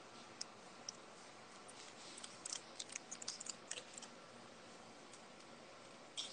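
Faint light clicks of fingers or nails tapping a phone screen, a few scattered and then a quick run of them in the middle, with one sharper click near the end, over a quiet room hiss.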